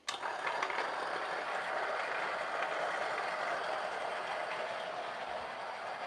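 Niche Zero conical-burr coffee grinder grinding a dose of espresso beans: it is switched on right at the start and then runs with a steady grinding whir.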